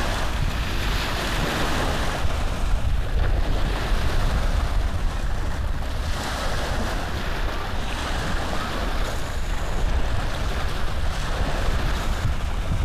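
Steady rushing noise with a low rumble, like wind or handling noise on the microphone.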